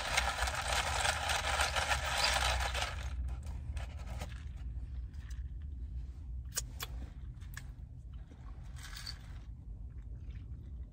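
A straw stirring ice in an iced latte: a continuous scraping rattle of ice for about three seconds, then softer scattered clicks and knocks of ice against the cup.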